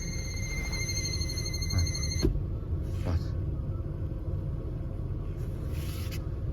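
Audi A6 C5 heater blower motor squealing with a steady high-pitched whine at the lowest fan speed. A light tap about two seconds in and the squeal cuts off at once, leaving the steady low rumble of the blower running.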